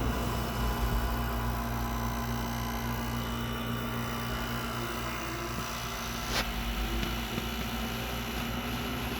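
Midea 5,000 BTU window air conditioner running, its compressor and fan making a steady hum with a constant low tone. A single click sounds about six seconds in.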